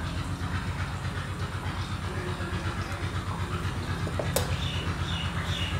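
Low, steady machine drone with a rapid, even pulse. A single sharp click comes about four seconds in.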